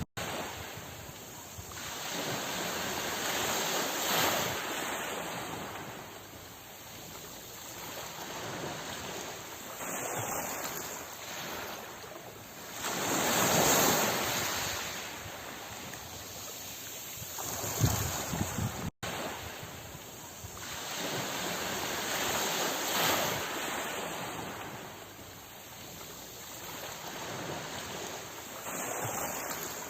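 Sea waves washing ashore, the surf swelling and ebbing every few seconds. There is a brief dropout about two-thirds of the way through.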